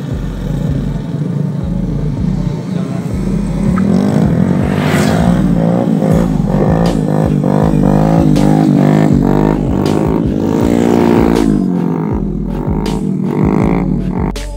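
Motorcycle engine running under way, its pitch climbing and falling several times as the rider revs up and shifts, over low wind rumble on the microphone.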